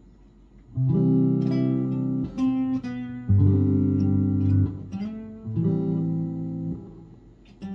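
Clean electric guitar playing a slow run of sustained chords, each strummed and left to ring before the next. The first chord comes about a second in, the last fades away near the end, and one short note sounds just after.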